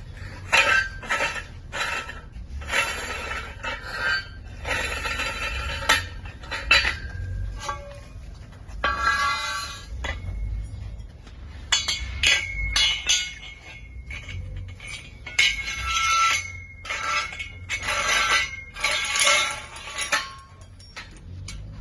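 Steel tubes of an adjustable steel prop being handled and fitted together: repeated metal clanks and scraping as tube slides on tube, with a sustained metallic ring in the second half.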